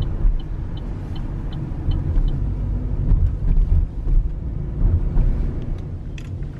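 Car driving, heard inside the cabin: a steady low road and engine rumble. A regular light ticking, about three a second, runs through the first two seconds and then stops.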